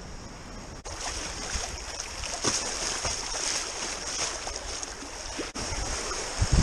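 River water rushing and splashing around a whitewater kayak's hull as it is paddled downstream, with the hiss of moving water throughout. The sound jumps abruptly twice, and a few low thumps come near the end.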